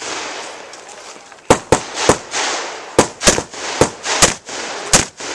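Rifle shots on a range, about eight sharp reports fired in quick, uneven strings starting about a second and a half in, each followed by a short echo.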